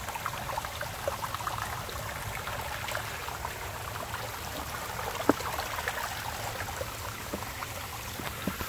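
Spring water trickling and splashing down a rock face onto stones: a steady patter of small splashes, with one sharper tick about five seconds in.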